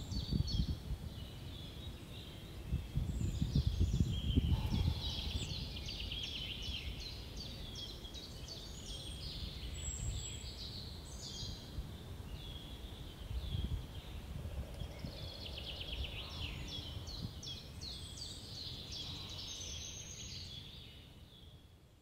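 Small songbirds singing, with many quick repeated high chirps and trills, over a low rumble of wind on the microphone. The rumble is strongest in the first few seconds, and everything fades out near the end.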